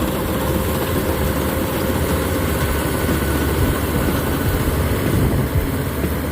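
Rice combine harvester's diesel engine running steadily, a dense, even machine noise with a strong low hum.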